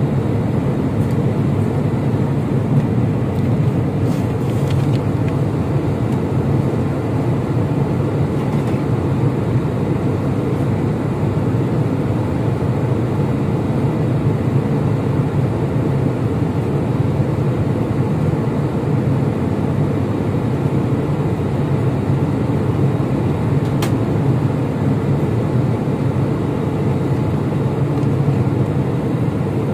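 Steady cabin noise of an airliner in flight, heard from inside the passenger cabin: an even, low drone of engines and airflow that holds at one level without change.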